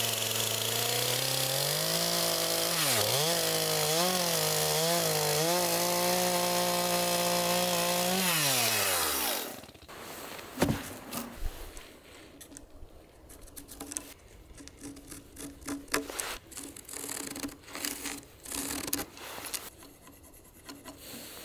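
Two-stroke chainsaw ripping a log lengthwise. Its engine speed sags and recovers several times under load, then winds down and stops about nine seconds in. Wooden knocks and scraping follow as the cut slabs are lifted and moved.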